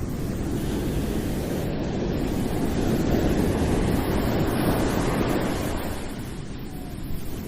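Ocean waves washing onto the shore, swelling to a peak midway and then easing off as the wave recedes, with some wind on the microphone.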